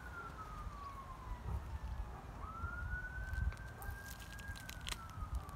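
A distant siren wailing, one clear tone sliding slowly down, swinging back up about two and a half seconds in, holding, then falling again near the end. Under it a low rumble, and a few short crackles in the middle.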